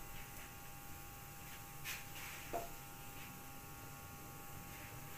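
Quiet kitchen room tone with a steady faint hum, broken by two brief faint clicks about two seconds in.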